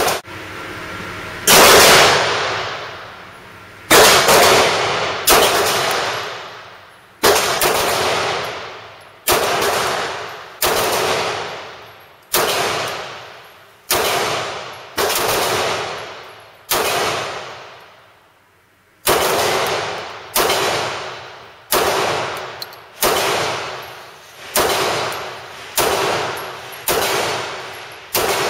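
A semi-automatic pistol fired about twenty times, one shot at a time at roughly one-second intervals, with a short pause about two-thirds of the way through and slightly quicker shots near the end. Each shot rings out with a long echo off the hard walls of an indoor range.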